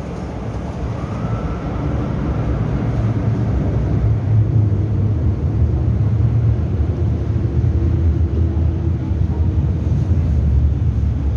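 MTR Tsuen Wan Line M-Train (Metro-Cammell electric multiple unit) running through an underground station without stopping, heard from behind platform screen doors. Its low rumble of wheels and running gear grows louder over the first few seconds as it approaches, then holds steady as the cars pass.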